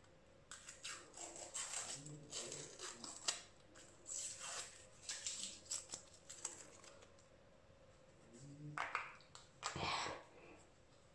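Faint clicking and crinkling of a skincare product's plastic packaging being worked at by hand, a product that is hard to open. There are a few short murmurs from the person.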